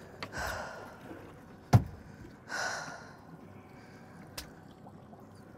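Two hard exhales of frustration from an angler whose line has just gone slack on a hooked fish, with one sharp thump on the boat's deck between them, a foot stomped in anger. A faint click follows near the end.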